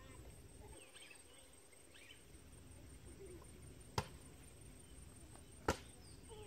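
Faint open-air background ambience with a few faint calls early on, broken by two sharp clicks about four seconds in and again a second and a half later.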